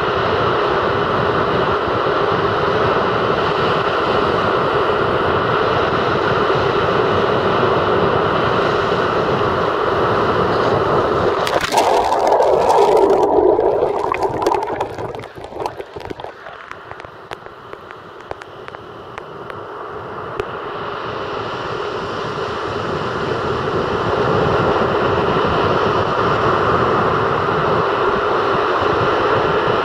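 Sea surf breaking and washing up a sandy beach, a steady rushing noise. About twelve seconds in, a loud burst of crackling and knocking right on the microphone lasts a few seconds. The surf then drops much quieter and slowly builds back to full level.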